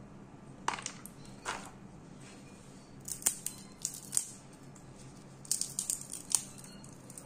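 Salt-roasted peanut shells being cracked open by hand: dry, sharp crackles and snaps that come irregularly, singly and in small clusters.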